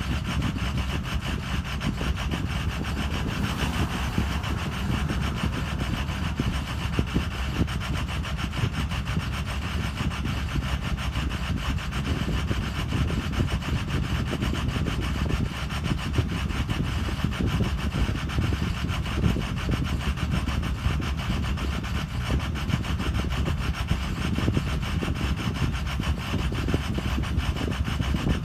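Ford Excursion's 6.0 Power Stroke turbo-diesel V8 idling unevenly, with irregular louder knocks through a steady low rumble: the intermittent rough idle this engine suffers from.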